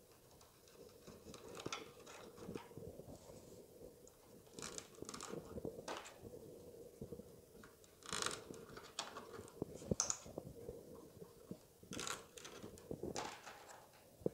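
Rolled paper tubes rustling and scratching against a plywood weaving loom as they are handled and laid in as new stakes. Irregular dry rustles with a few sharper scratches and clicks, louder in the second half.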